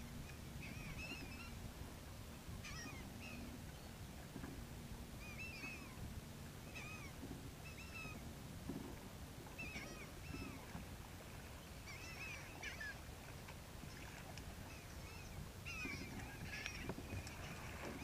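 A flock of gulls calling overhead: a run of short, arched cries, one after another, thickening near the end, over a low steady rumble.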